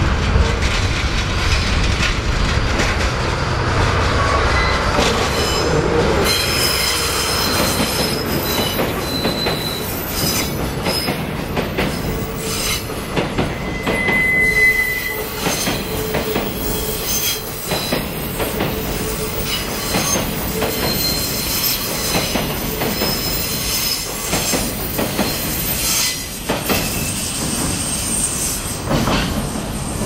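A diesel-hauled container freight train rolls past close by on a tight curve. The locomotive's low rumble comes first, then a long run of container wagons with wheels squealing shrilly on and off in the curve and clicking over the rail joints.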